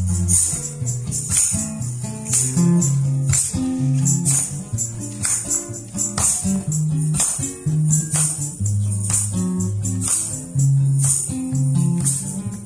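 Instrumental break on a bowl-backed fretted string instrument: a moving line of low picked notes under rhythmic, bright strummed strokes.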